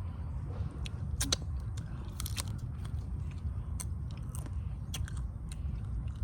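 Cooked crab shell being cracked and broken apart by hand and chewed, a series of sharp cracks, the loudest about one and two seconds in, over a steady low rumble.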